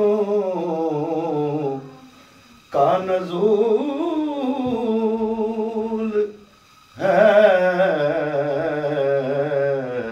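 A man reciting a naat unaccompanied: three long sung phrases with a wavering, ornamented pitch, a short breath between each.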